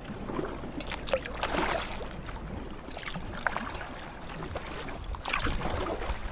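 Kayak paddle blades dipping into and lifting out of canal water from an inflatable kayak, giving a few irregular splashes and drips.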